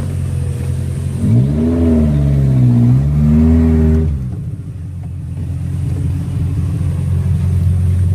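Suzuki Jimny Katana engine running, revved up twice from about a second in, then dropping back at about four seconds to a steady run.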